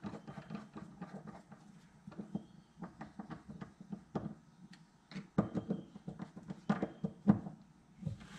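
Screwdriver turning the float bowl screws on a Suzuki LT185 carburetor: a string of irregular small clicks and taps, busiest from about five seconds in, with one louder tap a little after seven seconds.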